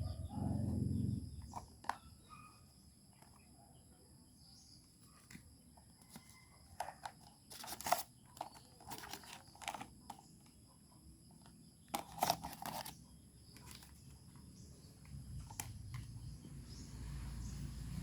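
Quiet handling noises: scattered small clicks and taps, with a few short crinkly, tearing bursts like plastic or paper packaging being handled, the loudest about eight and twelve seconds in.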